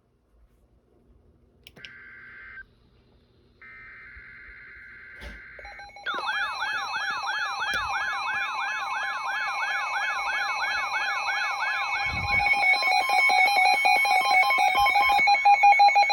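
Emergency Alert System tones: two short buzzy data bursts, then a loud steady alert tone with a wailing siren-like tone sweeping up and down over it about three times a second, turning faster partway through.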